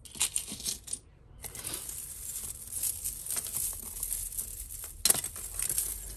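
Costume jewellery clinking and jingling as pieces are handled and rummaged through: a short flurry of clicks, a brief pause about a second in, then near-continuous clatter with a sharper clack about five seconds in.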